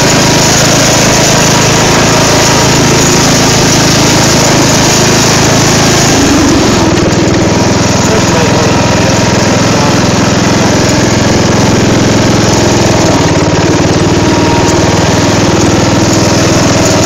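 Craftsman riding lawn mower engine running steadily while the mower is driven over rough ground, loud and close. The engine note changes about six seconds in.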